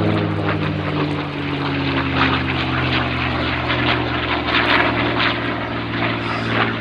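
North American P-51D Mustang's Packard Merlin V12 engine and propeller flying past, the engine note dropping in pitch over the first two seconds, then holding steady with a rough, rasping edge.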